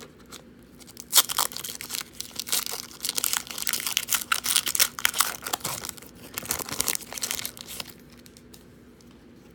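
Foil wrapper of a 2018 Donruss football card pack being torn open and crinkled by hand: a sharp rip about a second in, then busy crinkling that dies away near the end.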